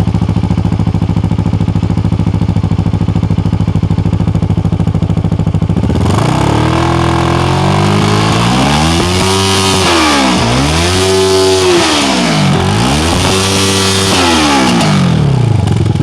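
CFMoto 650NK's parallel-twin engine idling steadily through its exhaust. About six seconds in it is revved up and back down three times, each rev rising and falling smoothly with a loud growl.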